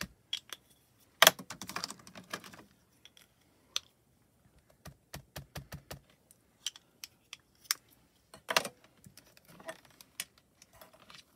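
Irregular plastic clicks and taps as small ink cube pads are handled and dabbed onto clear stamps held in a stamping platform, with two louder clacks, about a second in and again later.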